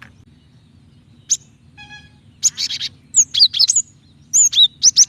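Female cinereous tit (gelatik batu) calling: a single sharp chirp, then rapid clusters of high chirps and quick down-slurred notes, repeated in several bursts.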